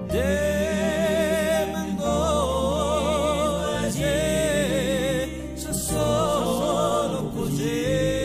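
Background music: a song with a voice holding long, wavering notes in phrases of about two seconds, over a steady bass accompaniment.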